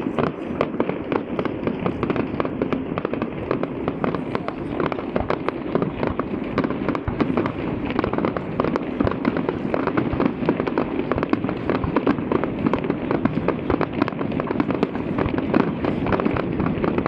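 Aerial fireworks bursting in quick succession: a dense, unbroken stream of bangs and crackling.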